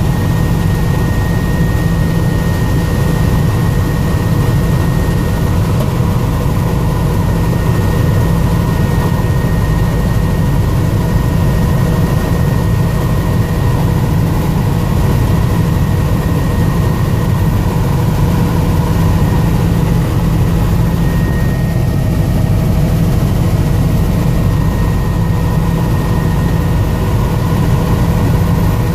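Helicopter engine and rotor noise heard from inside the cabin in flight: a loud, steady drone with a heavy low hum and a few steady whining tones over it.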